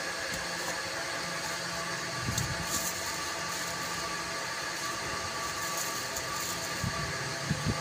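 A steady mechanical hum with several fixed tones running through it.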